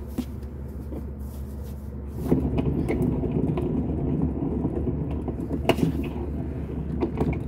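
Front wheel hub of a Club Car Precedent golf cart spun by hand off the ground, giving a rough rumble with scattered clicks that gets louder about two seconds in. It is the sound of a worn wheel hub bearing.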